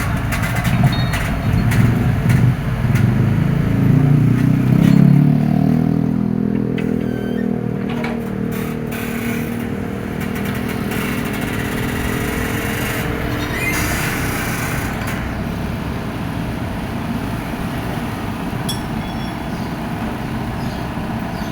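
Komatsu excavator's diesel engine working, loudest over the first five or six seconds and then running steadier, with occasional short clanks.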